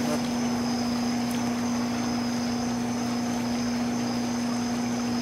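Steady low machine hum that holds one pitch throughout, with a faint high-pitched whine above it.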